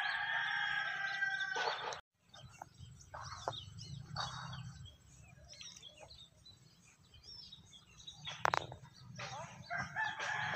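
A rooster crowing: a long held call of about two seconds that cuts off suddenly, then faint scattered sounds and a single click, and a second crow beginning near the end.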